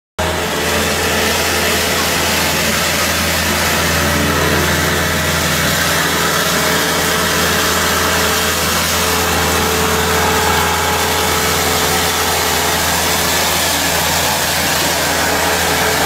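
Wheeled excavator running steadily while its hydraulic hedge-trimming head cuts through a hedge: a constant engine hum under an even hiss, unchanging throughout.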